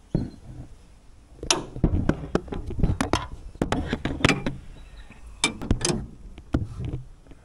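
Metal spanners clinking and knocking against the aluminium canopy while a bolt is tightened with a ring spanner: a string of irregular sharp clicks and knocks.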